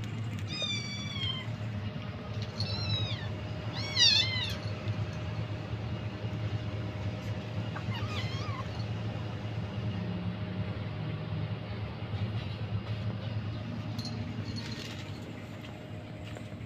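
A kitten meowing in high, short calls: four in the first nine seconds, the loudest about four seconds in, and a faint one near the end. A steady low hum runs underneath.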